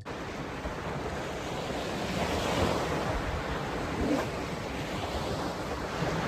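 Surf washing onto a beach under a strong wind, a steady rushing noise.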